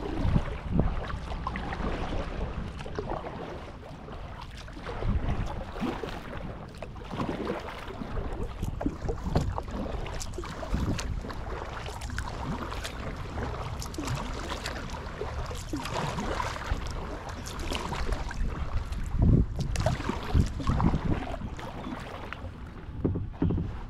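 Kayak paddle dipping and splashing in the river at an uneven pace, water dripping and slapping around the blades, over a low rumble of wind on the camera microphone.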